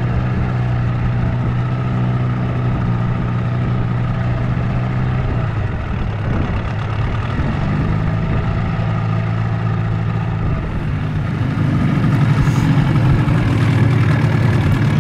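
An engine idling steadily. Its pitch shifts twice, and it grows louder near the end.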